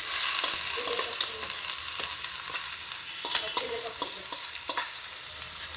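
Food sizzling in hot ghee in a frying pan: grated coconut, crushed garlic and dried red chillies frying while boiled greens are ladled in. Scattered sharp clinks and scrapes from a steel ladle against the steel bowl and pan.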